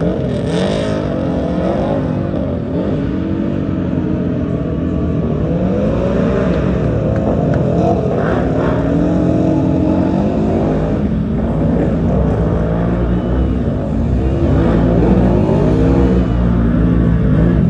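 Off-road race vehicle engine running hard, its pitch rising and falling repeatedly as the throttle is worked on and off through the course.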